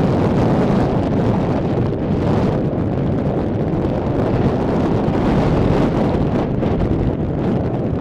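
Strong wind, hard enough to drive sand along the beach, buffeting the microphone with a loud, steady rumble.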